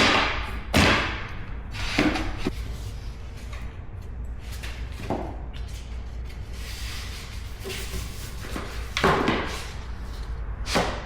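About half a dozen hard, irregular knocks and thuds from work on click-lock vinyl flooring planks: planks being tapped and set into place. The strongest knocks come about a second in and about nine seconds in.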